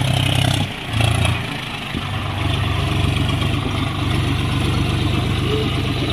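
John Deere four-wheel-drive tractor's diesel engine running steadily, with a brief drop and a quick surge in revs about a second in.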